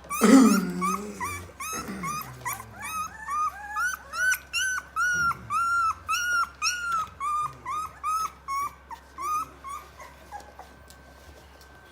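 Three-week-old Rottweiler puppies whimpering in a run of short, high squeaks, about two or three a second, with one louder, lower cry right at the start. The squeaks thin out and stop about ten and a half seconds in.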